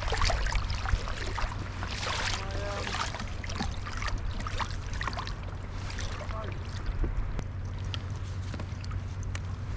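Water splashing and trickling against a sea kayak's hull as it moves off, over a steady low rumble.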